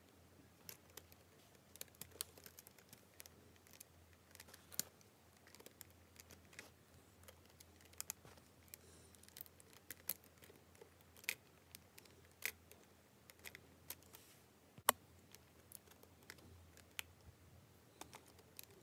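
Lego Technic plastic pieces clicking and snapping together as they are handled and pressed into place, an irregular run of small sharp clicks with one louder snap about three-quarters of the way through.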